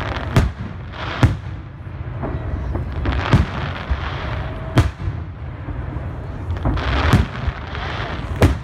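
Aerial fireworks shells bursting: about six sharp bangs at uneven intervals, with a low rumble carrying on between them.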